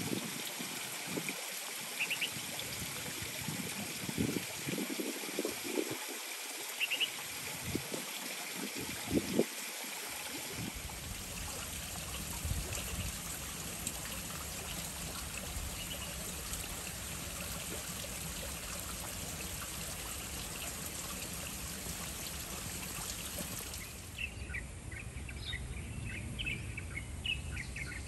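Steady hiss of light rain falling on trees and foliage, with small birds chirping over it. Near the end the hiss thins and the chirps become frequent.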